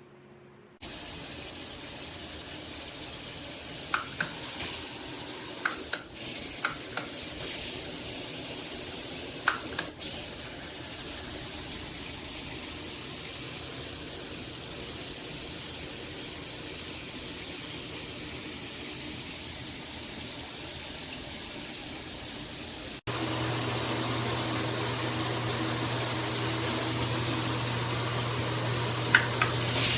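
Water spraying steadily from a shower head, with a few faint ticks in the first ten seconds. About two-thirds of the way through it cuts to a louder spray with a low hum under it.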